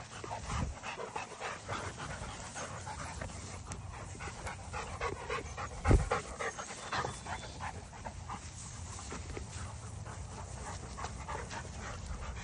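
Dogs panting hard and fast, close by, catching their breath after running and wrestling. A single low thump about six seconds in.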